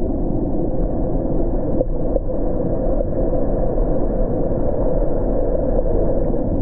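Steady, loud, muffled rushing noise with no clear rhythm or pitch.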